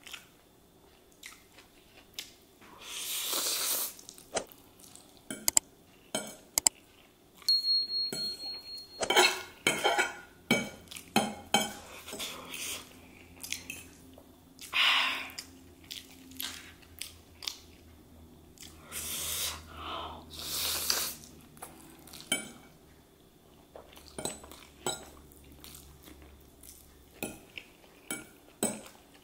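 Metal fork clinking and scraping on a ceramic plate while twirling noodles, in many short sharp clicks, with chewing of chow mein in a few longer stretches between.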